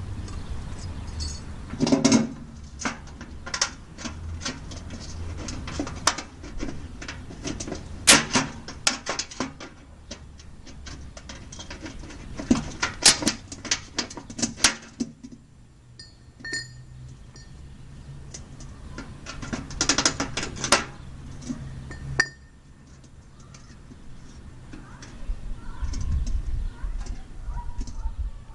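Clusters of sharp metallic clicks and clanks, like hard objects being handled and knocked together, with a quieter stretch and a low steady hum about halfway through.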